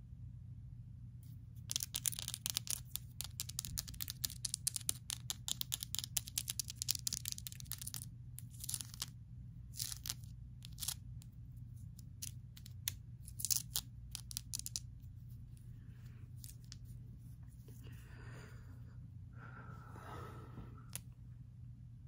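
Long acrylic fingernails tapping and scratching on a rough black tourmaline crystal, a dense run of quick crackly clicks that thins out to scattered taps, followed by a softer rustle near the end.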